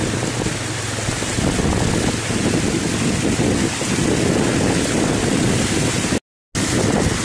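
Wind buffeting the microphone and water rushing and splashing as a scooter rides through a flooded street, over a faint low engine hum. The sound drops out to silence for a moment about six seconds in.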